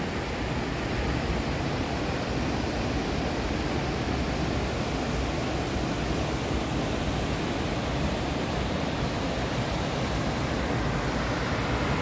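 Steady rush of river water running over rocky rapids and a small waterfall: an even, unbroken noise.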